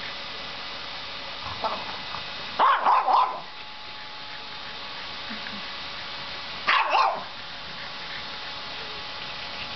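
French bulldog barking in two short bursts of a couple of barks each, about three and seven seconds in, over the steady drone of a running vacuum cleaner.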